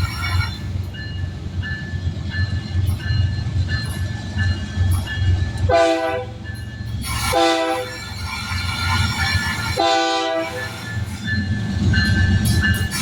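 Freight train rolling past with a steady low rumble and regular wheel clicks, while a locomotive air horn sounds three short blasts near the middle, the first two close together and the third a couple of seconds later.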